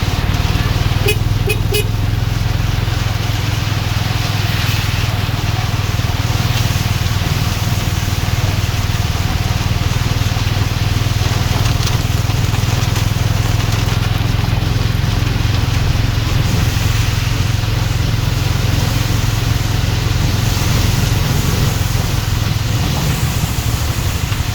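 Steady rain noise over the low, continuous hum of motor traffic, with a few light ticks between one and two seconds in.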